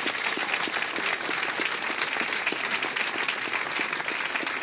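Studio audience applauding, many hands clapping at a steady level.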